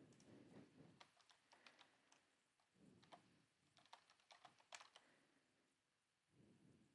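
Faint typing on a computer keyboard: two quick runs of keystrokes as a file name is entered, with a few soft low sounds between them.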